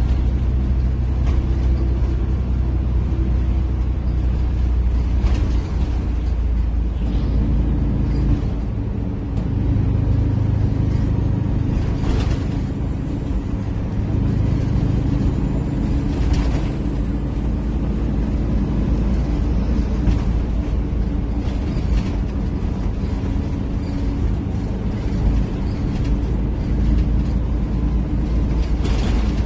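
Flxible Metro bus's Detroit Diesel engine running under way, heard inside the passenger cabin, with its exhaust tip missing. The engine note shifts about seven or eight seconds in, and a few sharp knocks or rattles sound now and then.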